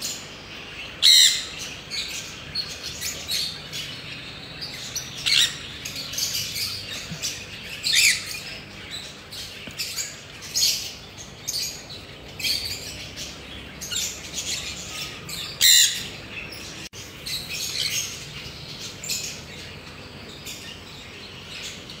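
Parrots chirping and squawking: short, sharp, high calls at irregular intervals, the loudest about a second in and near the sixteen-second mark.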